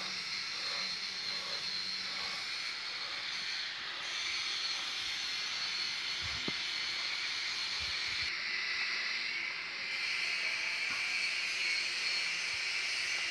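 Homemade bandsaw mill running, its drive belt and pulley spinning: a steady, even mechanical hiss with no changes in speed.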